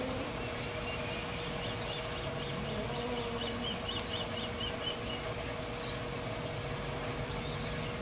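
Two domestic cats in a territorial standoff giving low, wavering yowls and growls over a steady background noise. A bird gives a rapid high trill of chirps about two and a half seconds in, lasting a couple of seconds.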